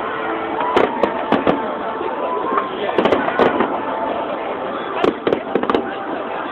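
Aerial firework shells bursting overhead: sharp bangs in clusters roughly every two seconds.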